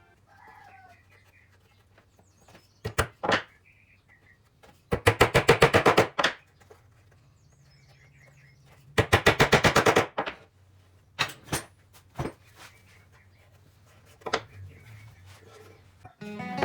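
A power tool with a faint steady low hum, breaking into two loud bursts of rapid rattling strokes, about a dozen a second and each about a second long, with a few single sharp knocks between them.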